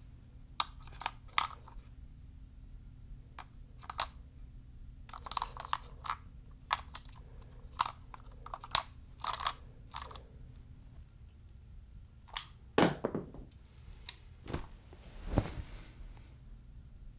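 Plastic clicks and clatter of AA batteries being fitted into an Xbox One wireless controller's battery compartment: a dozen or so sharp clicks, with two heavier knocks near the end, over a steady low hum.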